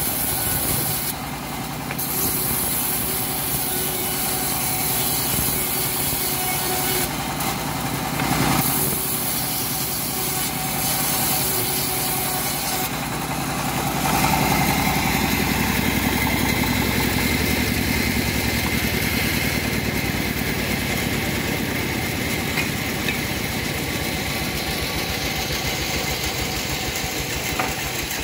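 Homemade engine-driven bandsaw mill running steadily while ripping teak boards, the engine chugging evenly underneath the blade's cutting noise. The sound grows louder about halfway through.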